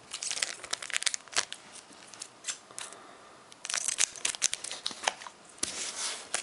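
Foil Pokémon booster pack wrapper crinkling and tearing as the pack is handled and opened, in clusters of sharp crackles: one group in the first second and a half and another, louder and denser, from about three and a half seconds in.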